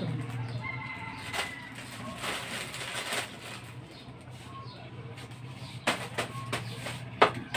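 Plastic noodle packets rustling and crinkling as they are handled and hung on a display, with several sharp crackles near the end, over a steady low hum.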